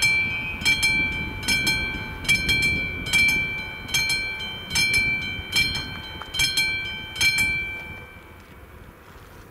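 Level-crossing warning bell of an AŽD 71 signal ringing out a steady stroke about every 0.8 seconds, each stroke ringing on. It stops about 7 seconds in as the warning ends with the train clear of the crossing, while the low rumble of the departing train fades away beneath it.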